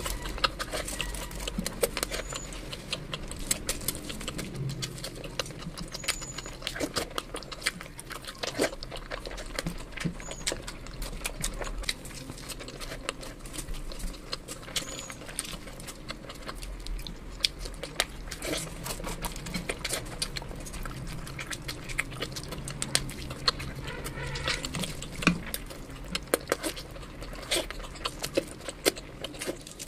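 Close-miked eating sounds: wet chewing and lip-smacking, mixed with fingers squishing through curry-soaked chicken and biryani rice, giving a constant run of small sticky clicks and smacks.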